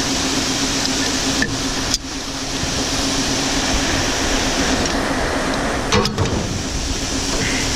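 Grain auger running steadily as it conveys corn, a constant mechanical drone with a low hum. A few brief knocks about one and a half to two seconds in and again about six seconds in.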